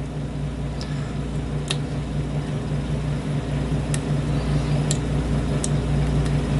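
Several faint, sharp clicks of a hook pick working the pins of a lock cylinder held in a false set, over a steady low hum.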